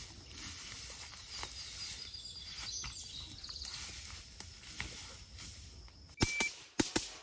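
Outdoor ambience in grassy woodland: a steady low rumble and hiss with faint high, thin tones. About six seconds in it is cut off by a few sharp, loud clicks.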